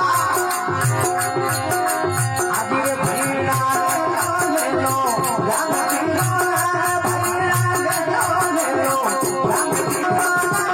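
Rajasthani folk bhajan music: a hand drum keeps a steady beat under regular metallic jingling, with a held melody line that bends in pitch.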